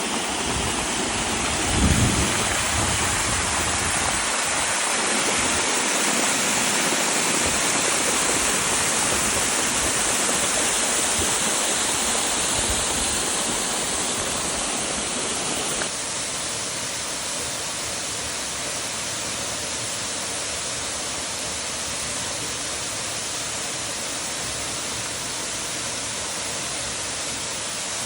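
Waterfall's water falling in a steady, even rush. A brief low thump comes about two seconds in, and at about sixteen seconds the rush drops abruptly to a slightly quieter, thinner level.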